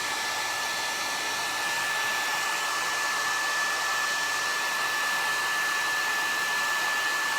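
Hand-held hair dryer running steadily: an even rush of blown air with a high, constant whine.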